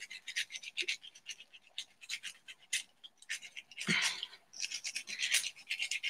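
Fine sandpaper rubbing the edges of a dried air-dry clay penguin pin: quiet, irregular short scratching strokes, with a slightly longer, louder scrape about four seconds in.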